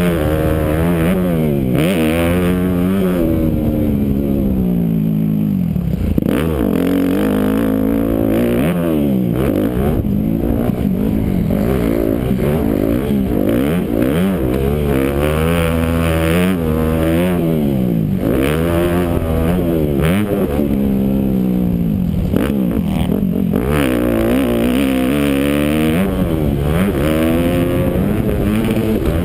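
Yamaha YZ250F four-stroke single-cylinder motocross engine under hard riding, revving up and backing off over and over, its pitch climbing and dropping with each throttle opening and shift, heard from a helmet-mounted camera.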